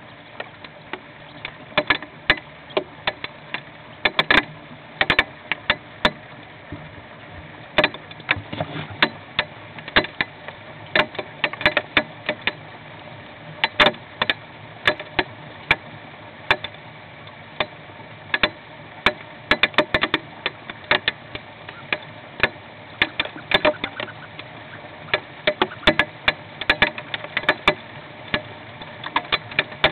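Hailstones striking the nest box, heard from inside: an irregular clatter of sharp hits, several a second, over a steady hiss.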